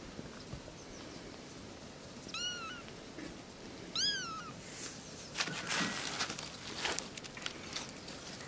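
Very young kittens mewing: two short, high-pitched mews about a second and a half apart, each rising then falling, the second louder. Then a few seconds of rustling and clicks in the grass and dry leaves.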